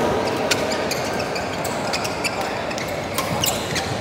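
Badminton rackets striking shuttlecocks: sharp smacks every second or so in a rally, echoing over the steady murmur of a large indoor sports hall.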